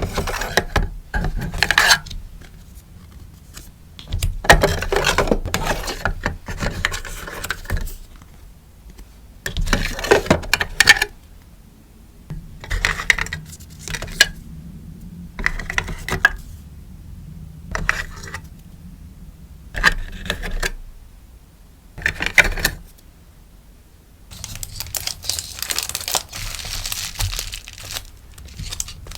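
Stickers and crinkly plastic packaging being handled while packing an order: short bursts of rustling with clicks and taps, and a longer stretch of crinkling near the end.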